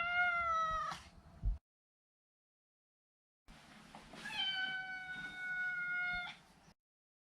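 Maine coon cat meowing twice: a short meow that falls slightly in pitch at the start, then a longer, steady meow of about two seconds a few seconds later.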